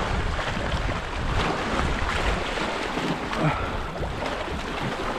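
Wind buffeting the microphone over choppy lake water, with small waves lapping against the shoreline rocks.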